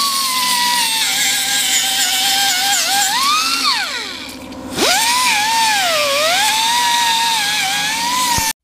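Pneumatic cut-off tool running at high speed and cutting into a car's sheet-metal body, a high whine with grinding hiss whose pitch wavers as the wheel bites. About three and a half seconds in the whine sinks as the tool spools down, then rises again a second later. It stops abruptly near the end.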